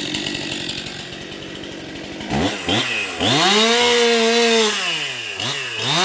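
Two-stroke chainsaw idling, then revved up to high speed about two seconds in, held there, eased off briefly just after five seconds and revved again.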